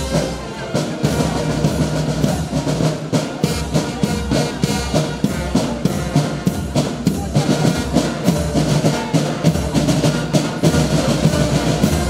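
Marching band playing a march: side drums and bass drum beating a steady, quick rhythm under saxophone and other wind instruments.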